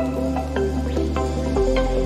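Electronic background music: a run of short plucked melody notes over held bass notes, the bass changing to a new note about one and a half seconds in.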